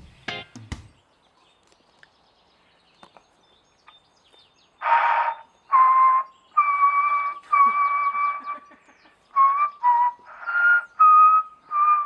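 A short tune whistled through a handheld megaphone: about nine held notes of changing pitch, each with a rough hiss around it, starting about five seconds in after a near-silent gap. Just before the gap, guitar music cuts off.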